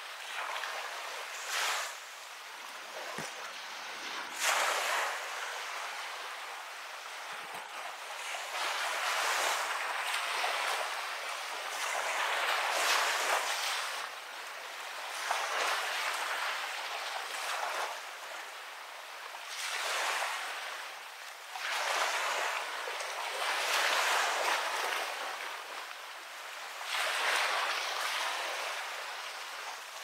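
Sea waves washing onto a beach, each surge swelling and fading over a few seconds.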